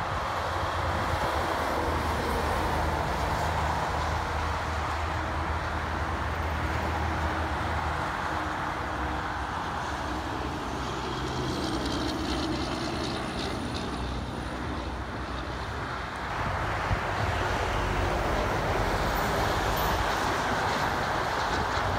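Heavy interstate traffic passing: steady tyre roar with the low drone of big diesel trucks' engines underneath, easing slightly about two-thirds of the way through before building again.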